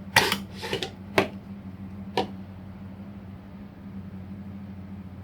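A few sharp plastic clicks and knocks in the first two seconds as a plug-in dual USB charger is pulled out of and pushed into the outlets of a home-made power distribution box, over the steady whirr of an electric fan.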